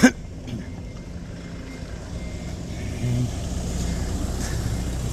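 A motor vehicle's engine running with a steady low drone, a little louder from about three seconds in, after a sharp knock at the very start.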